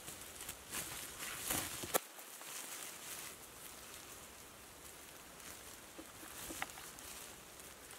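Quiet rustling and crinkling of a woven plastic sack being gripped and handled on dry bamboo leaves, with scattered light clicks.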